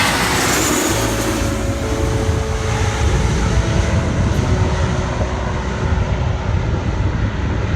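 Airliner noise heard from inside the cabin: a steady rumble of jet engines and rushing air, heavier in the low end from about a second in.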